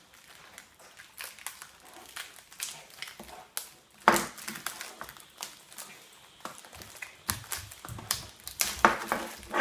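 Metal spring clamps being worked out of their packaging and handled: an irregular run of sharp clicks and clacks, with one loud knock about four seconds in and a quick cluster near the end.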